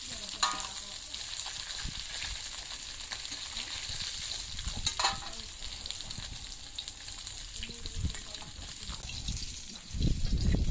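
Pieces of snakehead fish sizzling steadily as they fry in hot oil in a karahi, with a couple of sharp clinks of a metal spatula against the pan as the pieces are turned and lifted out. A louder low rumble comes in near the end.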